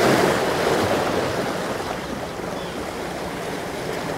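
Sea waves washing against a jetty, a steady rush that swells at the start and eases off over the next couple of seconds.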